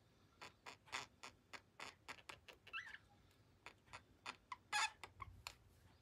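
Budgerigars making quick, irregular soft clicks, several a second, with a couple of short chirps about three and five seconds in.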